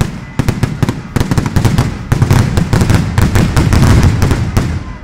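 Daytime fireworks: a rapid, dense barrage of bangs and cracks running together over a low rumble, thinning out and dying away near the end.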